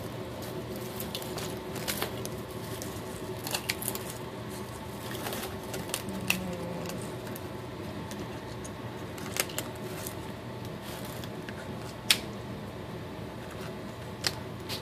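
Scissors cutting into a live sea urchin's shell and spines around its mouth: irregular sharp snips and cracks, the loudest about twelve seconds in. A steady hum runs underneath.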